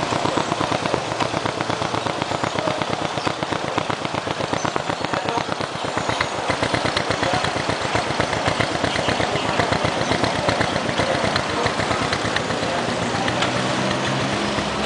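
A small motorcycle engine idling, heard close to the exhaust tailpipe, with a fast, even putter of exhaust pulses. Near the end a steadier hum rises slightly under the putter.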